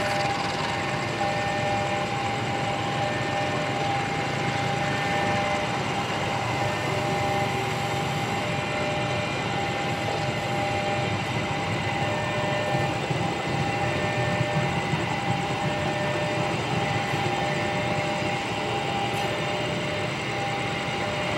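Passenger train rolling slowly past: steady running noise with a constant high whine.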